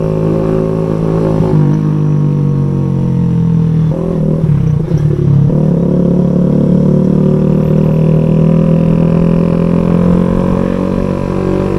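Kawasaki Z125 Pro's single-cylinder 125 cc engine running through a louder aftermarket exhaust while riding. The note drops about a second and a half in, breaks up briefly around the middle, then climbs slowly.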